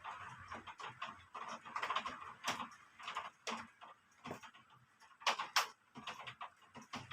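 Rain falling in irregular heavy drops: a scatter of sharp taps and splats with short bursts of patter in between.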